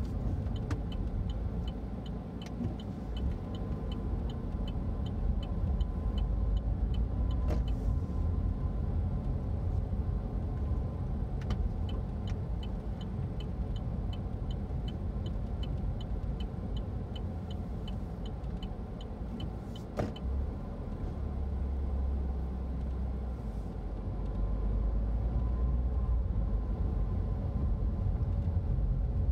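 Car driving slowly, heard from inside the cabin: a steady low road and engine rumble. Two long runs of quick, even light ticks come through it, one in the first quarter and one through the middle, and there is a single sharp knock about two-thirds of the way through.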